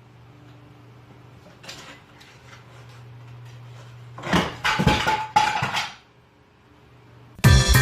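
A steady low hum, then a burst of clattering and rattling knocks lasting about two seconds, with music starting near the end.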